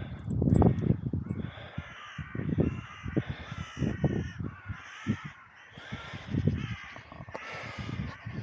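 A flock of crows cawing, many calls overlapping one another without a break, over a low rumble that is loudest in the first second.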